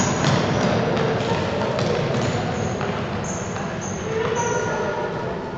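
Indoor futsal play echoing in a large sports hall: sneakers squeak sharply on the wooden court several times, with a few ball kicks and distant children's shouts.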